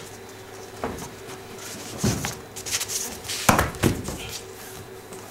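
Thuds, knocks and scuffs of actors' feet and bodies on a stage floor as one drops down to lie on it, with a few knocks about one, two and three and a half seconds in, the loudest near three and a half seconds, over a faint steady hum.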